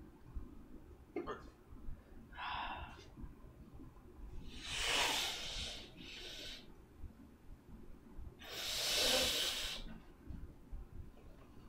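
A person breathing heavily close to the microphone: a few noisy exhalations, the two loudest about five and nine seconds in.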